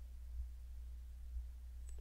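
Quiet room tone with a steady low hum and a couple of faint clicks.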